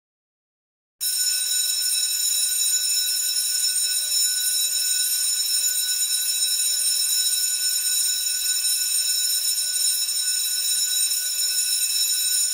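School bell ringing steadily without a break, starting about a second in.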